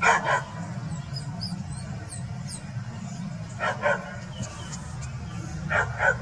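A large dog barking at a fox in three quick double barks: one at the start, one just past the middle and one near the end.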